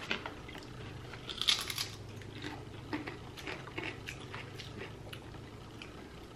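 Kettle-cooked potato chips being bitten and chewed: irregular crisp crunches, a burst of louder ones about a second and a half in, then softer scattered crunches.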